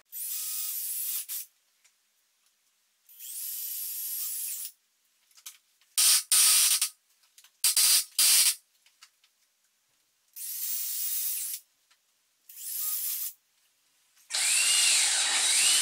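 Cordless drill boring 1/4-inch vent holes through PVC pipe end caps, going through two layers of PVC. It runs in about seven short runs of a second or so each, with pauses between, the loudest about six to eight seconds in.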